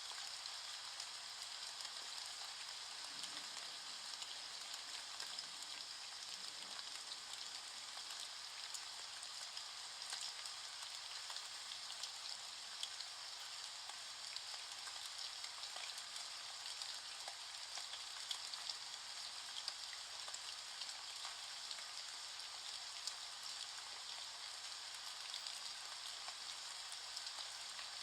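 Steady rain falling: an even patter dotted with many small drop ticks.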